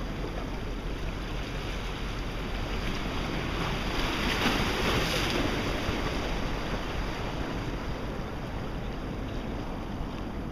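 Sea waves washing at the shoreline, with wind buffeting the microphone; the rush swells louder for a moment about four seconds in.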